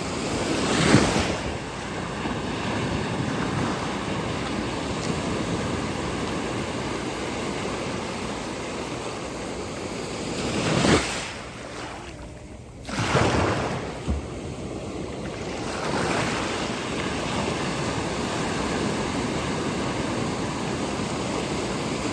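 Pacific Ocean surf: a steady rush of breaking and washing waves, with louder surges about a second in and twice more around the middle.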